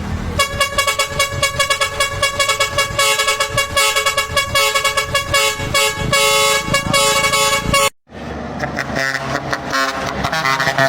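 Loud horn held on one steady note with a choppy, stuttering pulse. About eight seconds in it cuts off abruptly and a different, lower horn sound takes over.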